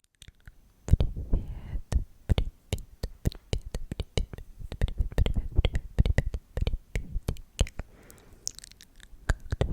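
Close-miked ASMR trigger sounds: a fast, irregular run of sharp clicks and pops, several a second, with a couple of short breathy whispers.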